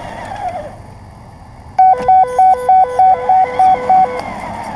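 Small RC car electric motor whining, dying away about a second in. Then a loud electronic beeping tune of two tones stepping high-low, about eight beeps at three or four a second, stops shortly before the motor whine picks up again.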